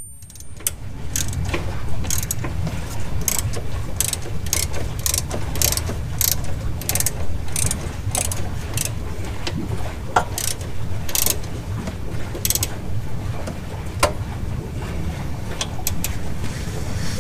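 Hand ratchet with a Torx bit clicking in repeated short strokes as it runs in a rear motor mount bolt. A steady low rumble sits underneath.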